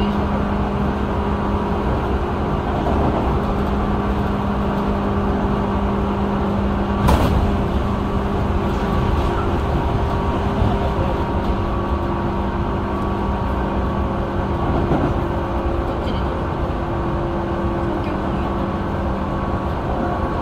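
Tobu 9000 series chopper-controlled electric train running at speed, heard inside the passenger car: steady motor whine tones over the rumble of wheels on rail. About seven seconds in there is a sharp whoosh and a few seconds of rushing noise as a train passes the other way.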